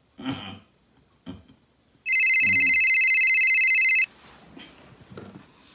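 Smartphone ringing with a rapidly trilling, bell-like ringtone, one burst of about two seconds starting about two seconds in. Before it come two brief, low, soft sounds.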